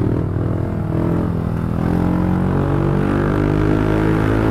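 Yamaha NMAX 155 scooter's single-cylinder engine running steadily while riding, its pitch drifting slightly with the throttle.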